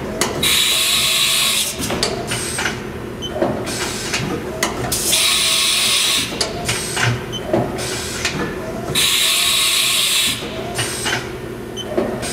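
Haas side-mount tool changer cycling through tool changes, with clunks and clicks from the arm and magazine. About every four seconds there is a loud hiss lasting about a second and a half, three in all, typical of the spindle's air blast as a tool is released and swapped.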